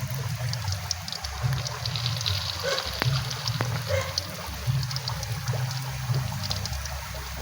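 Battered banana leaves frying in hot oil: a steady sizzle with many small pops and crackles.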